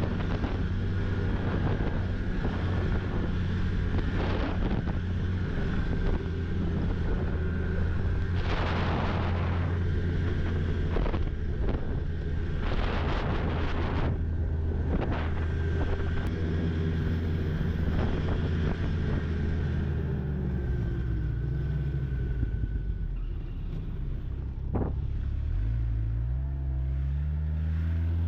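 Snowmobile engine running under way, with wind and snow hiss mixed in. About twenty seconds in, the engine note drops as the machine slows, then rises again near the end as it speeds back up.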